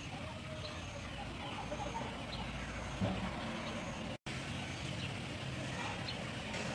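Outdoor background ambience: a steady low hum and hiss with faint high chirps repeating about once a second. A soft knock comes about three seconds in.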